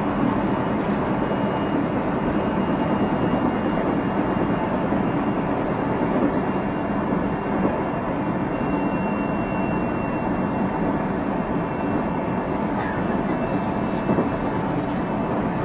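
JR Central 373 series electric multiple unit (set F2) running at speed: a steady rumble of wheels on rail and traction equipment, with a faint high steady whine.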